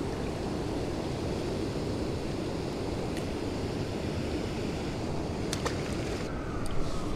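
Steady rushing of river water pouring over a spillway, a constant even wash. It is broken by a couple of sharp clicks about five and a half seconds in.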